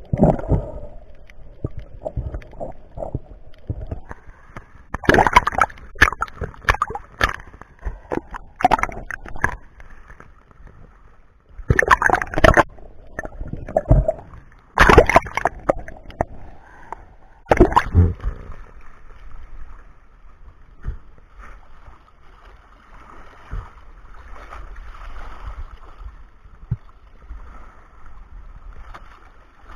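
Water splashing and gurgling around a diver: several loud bursts of splashing in the first half, then a softer, steady wash of moving water.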